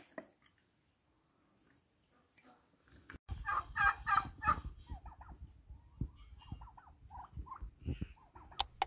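After about three seconds of near quiet, domestic turkeys call: a rapid rattling gobble, then a string of shorter calls, over a low rumble.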